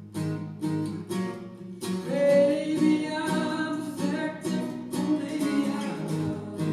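Gibson Hummingbird acoustic guitar strummed in a steady rhythm, with a man singing over it.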